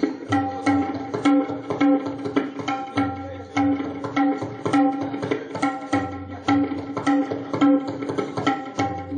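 Tabla played in a steady, repeating rhythm: pitched ringing strokes over low bass strokes.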